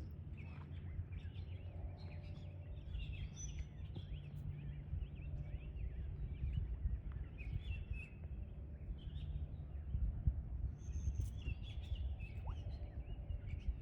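Several small birds chirping and calling over a steady low rumble.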